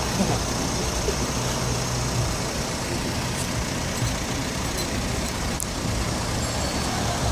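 Street traffic noise, with car engines running close by as a steady low hum. One sharp click about five and a half seconds in.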